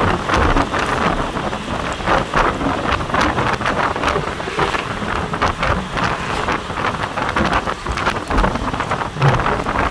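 Wind rushing in through an open window of a moving vehicle and buffeting the microphone in uneven gusts, over the vehicle's road noise.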